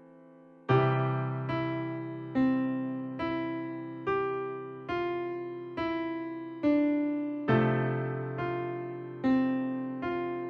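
Background music: a solo piano playing single notes at an even, gentle pace, a little more than one a second, each note fading after it is struck, over a held low bass note. The playing comes in about a second in, after the faint tail of a fading chord.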